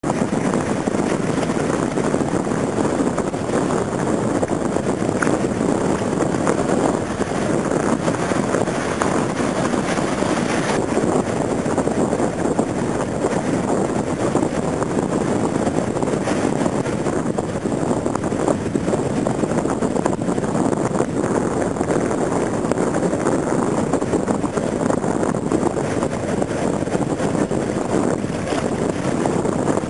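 Breaking ocean surf: a steady rushing noise that does not let up.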